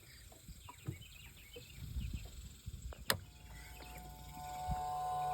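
Small handling clicks and a sharp click, then an electric motor starting up with a steady whine that grows louder.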